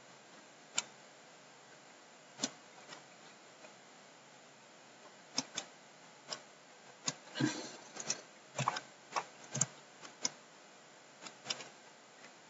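Irregular, sharp clicks of a computer mouse and keyboard keys as selections are drawn, about fifteen separate clicks, sparse at first and bunching together in the second half.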